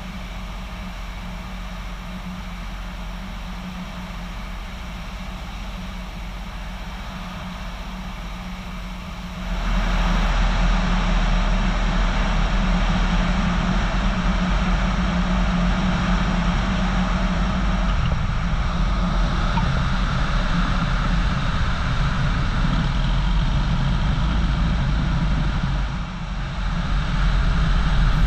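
Cessna 177RG Cardinal's propeller engine running at low power on short final. About ten seconds in it turns suddenly louder with a rushing noise as the plane touches down and rolls out along the runway, and it dips briefly near the end.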